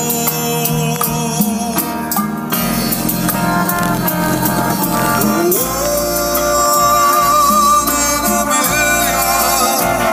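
A song with a singing voice played loud through a car audio system, with a strong deep bass line.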